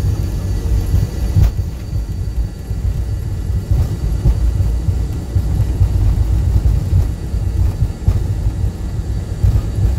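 Jet airliner on its takeoff roll, heard inside the cockpit: a loud, uneven low rumble from the engines at takeoff thrust and the wheels running along the runway, with a few faint knocks.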